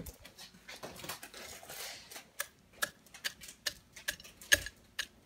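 A hand crushing crisp bacon pieces onto eggs on a ceramic plate: a light rustle, then a regular run of sharp clicks about two a second from about halfway through as the fist presses down on the plate.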